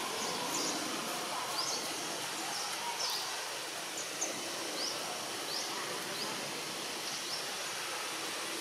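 Outdoor forest ambience: a steady hiss with short, high, rising chirps repeating about once a second.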